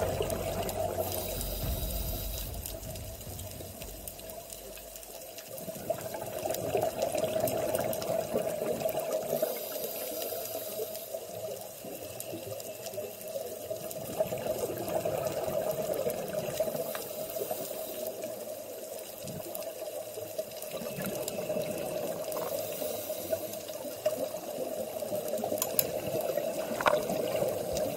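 Underwater scuba-diving ambience, heard from inside the camera's housing: a muffled rush and bubbling of regulator exhaust bubbles that swells and eases in slow waves.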